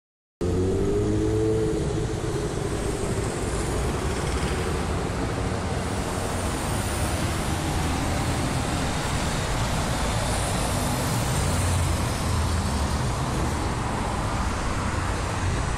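Steady city street traffic heard from above, with cars and motor scooters running and passing in a continuous rumble. A short rising engine note comes near the start. Recorded on a phone's built-in microphone.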